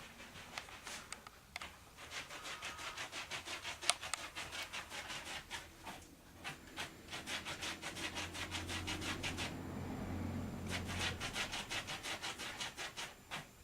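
A dog panting in quick, even rasping breaths, about five or six a second, in several runs with short pauses. A low steady hum sits under it for a few seconds in the second half.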